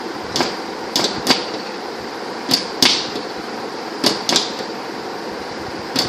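Toco toucan tapping its bill against the window, about seven sharp taps, mostly in quick pairs, over a steady background noise.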